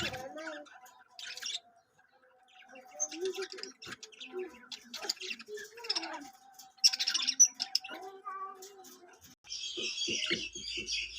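Small pet birds chirping with short, scattered calls, breaking into dense, continuous chattering about nine and a half seconds in.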